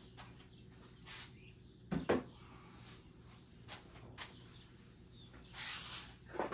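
Scattered clicks and knocks of mower engine parts and tools being handled during disassembly, with two thumps about two seconds in and a brief hiss near the end.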